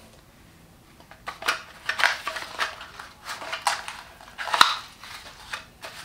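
Cardboard packaging crackling and scraping as a plastic vacuum nozzle is handled in its cardboard sleeve, with scattered clicks of plastic against cardboard. It starts about a second in, and one sharp click a little past the halfway mark is the loudest.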